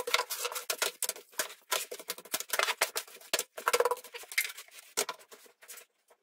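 Hand rubbing and sweeping over a rough wooden workbench, with small steel nuts and washers set down on it: a fast run of scratchy clicks and scrapes that thins out near the end.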